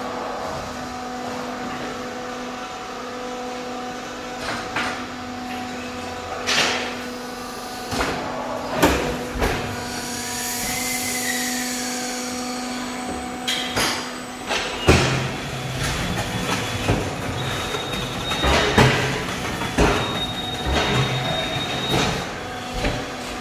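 ENDEAVOUR-iF3500 automatic hydraulic fly ash brick press running through its pressing cycle, with a steady hum and repeated metallic clanks and knocks of the mould and pallet gear. A brief whine rises and falls about halfway, and the clanks come thick and fast in the last part.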